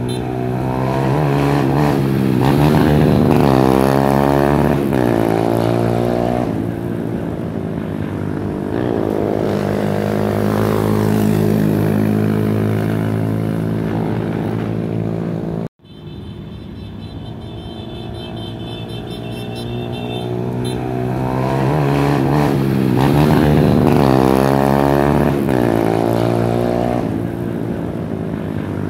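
Motorcycles street racing, their engines revving hard in repeated rising sweeps as they accelerate, then easing off. The sound cuts out for an instant about halfway through, and the same run of revving comes again.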